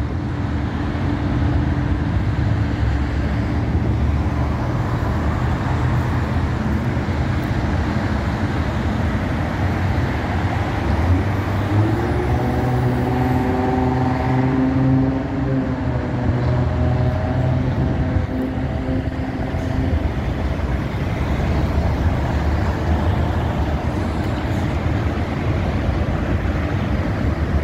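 Road noise heard from inside a moving car on a freeway: a steady low rumble of engine, tyres and passing traffic. About twelve seconds in, a pitched tone rises and holds for several seconds.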